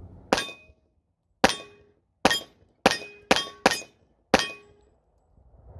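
Seven shots from a Rock Island Armory 1911 A1 .45 pistol, each a sharp crack with a brief ringing after it; the first shots come about a second apart, then quicker, about two a second.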